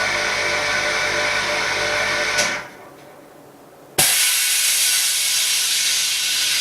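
All-in-one LCD laminating and bubble-removal machine running with a steady hum and hiss, which stops about two and a half seconds in. About a second and a half later a sharp click starts a loud, steady rush of air as the machine releases its air.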